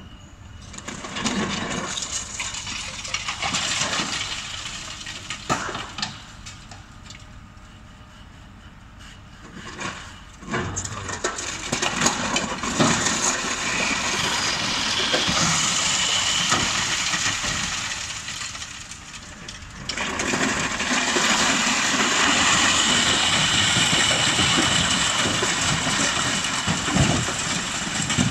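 Long-reach demolition excavator tearing into a concrete building: crunching, cracking and clattering of breaking concrete and falling rubble. It comes in stretches, loud for a few seconds near the start, then again from about ten seconds in, with a short lull near twenty seconds before it picks up again.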